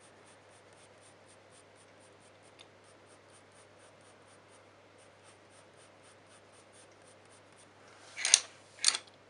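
Coloured pencil shading softly on paper: faint, quick short strokes, about three or four a second. Near the end come two louder, short scratchy sounds about half a second apart.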